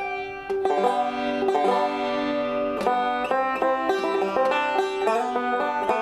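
Fender LEO banjo being picked: a quick, continuous run of plucked notes in a tune.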